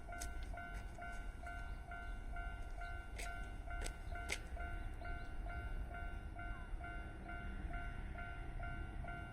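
Japanese railway level-crossing warning bell ringing in a steady two-tone ding, about two strikes a second, over the low rumble of a Kintetsu electric train running past. A few sharp clicks come in quick succession around the middle.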